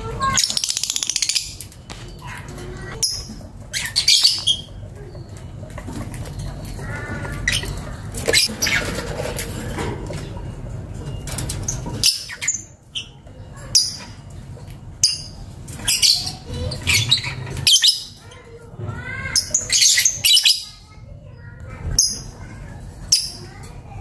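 Lovebird chirping: a long series of short, shrill, high-pitched chirps and squeaks with brief pauses between them, some coming in quick runs.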